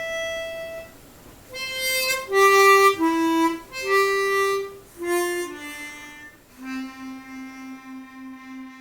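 Solo instrumental music: a slow melody of single held notes on a reed instrument, ending on a long low note that pulses with a tremolo and fades out.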